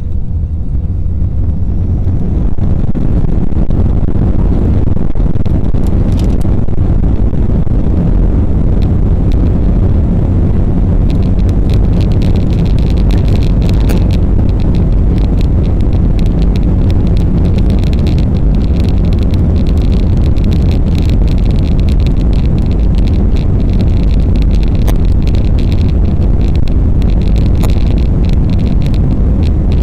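Airbus A321-200 jet cabin noise heard from a passenger seat: a loud, steady rumble of engines and airflow that builds over the first couple of seconds, with fine cabin rattling joining in partway through.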